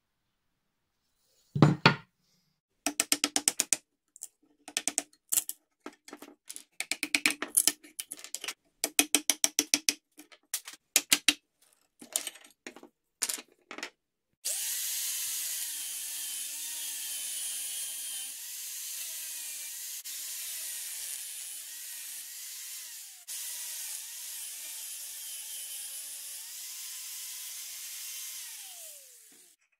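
A string of short, rapid mechanical bursts, then an angle grinder grinding the steel cleaver for about the last fifteen seconds. Its whine wavers with the load and falls away near the end as the grinder is switched off and spins down.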